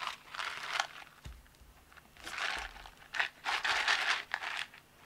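Packaging rustling and crinkling in several short bursts as a padded Jiffy bag is handled and the small boxed product is pulled out of it.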